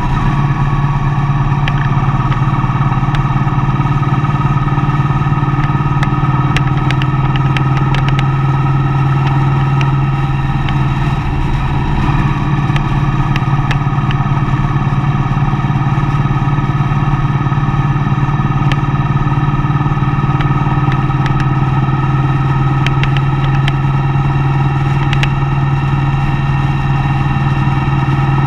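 A motor vehicle on the move, its engine running with a steady drone and road noise; the engine note sags a little about ten seconds in, then climbs again.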